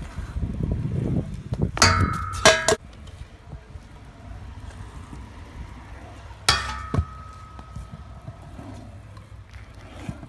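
Stunt scooter wheels rolling on concrete, then metal clanks as the scooter strikes a steel flat rail: a quick cluster of clanks about two seconds in, and one sharp clang past the middle that rings on for about two seconds.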